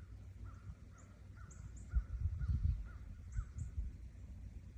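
A bird calling over and over in short, high notes, about two a second, over a low outdoor rumble with a few soft thumps.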